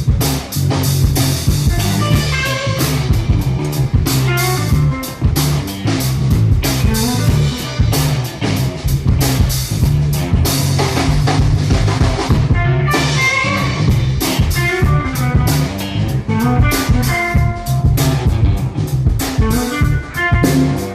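Live blues-rock band playing: electric guitar over drums, with low notes underneath, continuous and loud.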